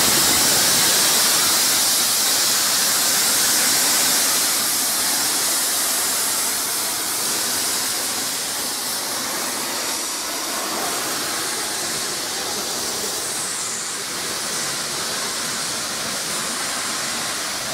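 Steam hissing steadily from the LMS Royal Scot class 4-6-0 steam locomotive 46100, with no exhaust beats; it grows a little quieter after the first few seconds.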